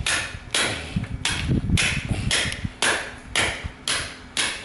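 Repeated blows struck on an epoxy FRP laminate test strip, about nine evenly spaced hits at roughly two a second, in an impact-strength test of the laminate.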